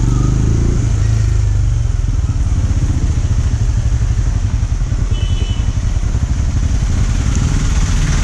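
Benelli Imperiale 400's single-cylinder engine running at low speed as the motorcycle rolls slowly through town traffic and comes to a stop.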